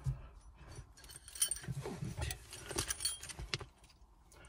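Light metallic clicks and rattles of a hand tool and small shifter parts being worked, mostly between about one and three and a half seconds in.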